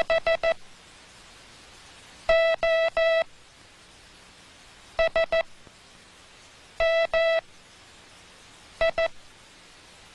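Morse code sent on a telegraph key through a code-practice oscillator, a buzzy beep at one pitch keyed in letter groups made only of dits or only of dahs. First comes a quick run of short dits, then three long dahs (O), three short dits (S), two long dahs (M) and two short dits (I), with pauses of about a second and a half between letters.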